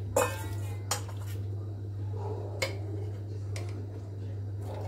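Steel ladle clinking against a steel kadhai and a small steel bowl as curry is ladled out: about five sharp clinks, the loudest about a quarter-second in, over a steady low hum.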